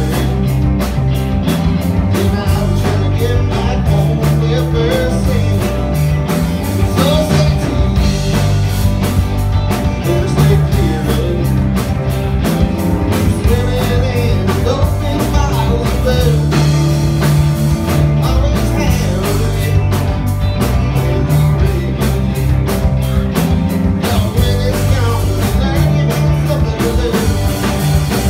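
Live blues-rock band playing: electric guitars over a drum kit, with a repeating bass line and a steady beat.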